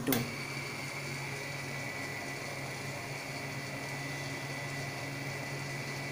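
A click, then the stiffness tester's gear motor runs steadily with a low hum and a thin high whine.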